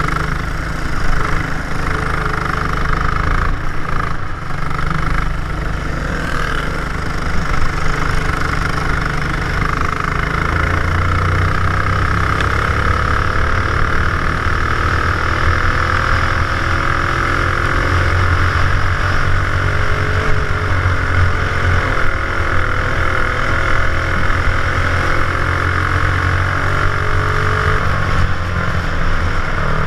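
Racing kart engine running hard on track, its pitch rising and falling as it accelerates and slows for the corners, heard from a helmet-mounted camera, with a steady hiss over it.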